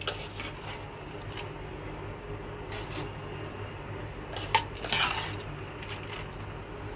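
Metal cooking utensils clinking against a pot or pan a few times, loudest twice about four and a half and five seconds in, over a steady low hum.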